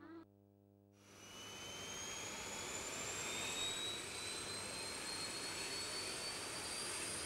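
Jet engine running up: a rushing noise fades in about a second in and holds, with a high whine that rises slowly and steadily in pitch.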